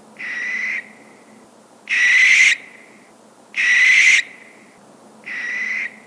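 Barn owl screeching: four harsh, rasping screams of about half a second each, spaced about a second and a half apart, the middle two louder than the first and last.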